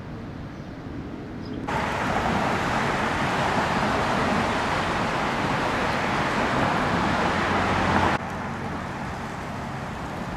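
Steady street traffic noise outdoors. A louder, even hiss cuts in abruptly about two seconds in and cuts out just as abruptly about eight seconds in.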